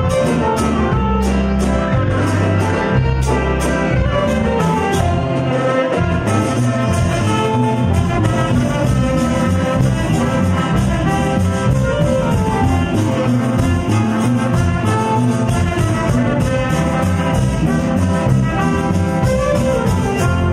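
Live band playing an upbeat instrumental number: saxophones carry the melody over a stepping bass line, keyboard, guitar and a drum kit keeping a steady beat.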